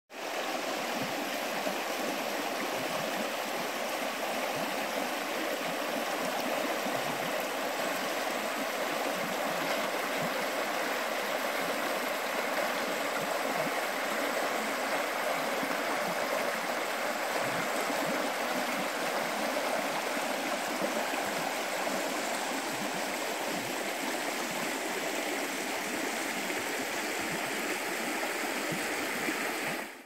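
Shallow river rippling and splashing over stones that break the surface at low water: a steady rushing babble of flowing water. It fades in at the very start and fades out at the end.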